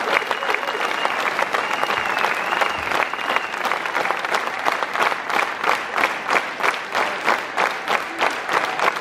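Concert crowd applauding and cheering, with a high whistle over the clapping for the first three seconds or so. About four seconds in, the clapping settles into rhythmic clapping in unison.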